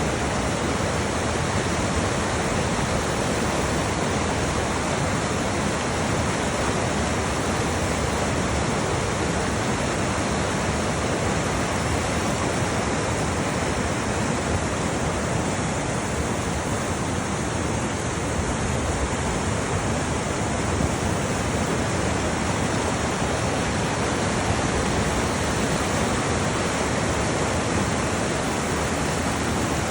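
Rushing water of a creek or falls: a loud, steady, unbroken rush of water noise.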